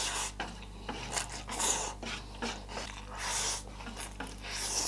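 A person slurping spicy instant noodles off chopsticks, with about four long airy sucking slurps and some chewing between them.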